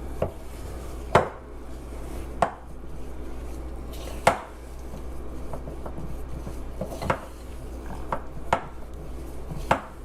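A mixing utensil knocking against a mixing bowl as flour is folded and mashed into cookie dough: about nine sharp knocks at uneven intervals, with a faint steady low hum underneath.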